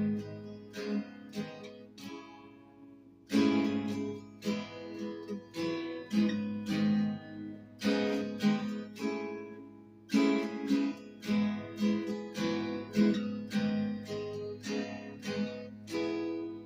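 Guitar chords strummed in a steady rhythm, each strum ringing out before the next, with a brief pause a couple of seconds in. This is the instrumental lead-in to a song, without vocals.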